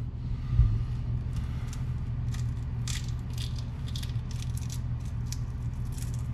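Shell of a boiled egg crackling and scraping in short, irregular bits as it is picked off by hand, over a steady low hum; the shell is coming off poorly. A soft bump sounds about half a second in.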